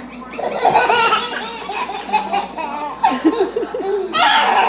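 Baby boys belly-laughing in repeated bursts, the last burst near the end the loudest.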